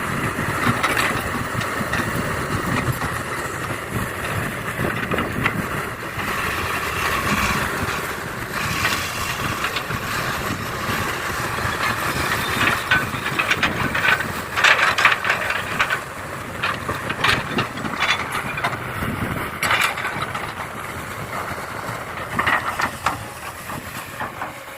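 Small electric motors and gearboxes of radio-controlled model trucks and an excavator whirring, with many scattered clicks and knocks.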